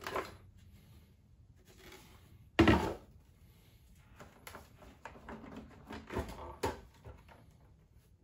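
Plastic tanks and parts of a Bissell ProHeat 2X Revolution carpet cleaner being lifted off and set down on a table: scattered clicks and knocks, the loudest a single clunk a little under three seconds in.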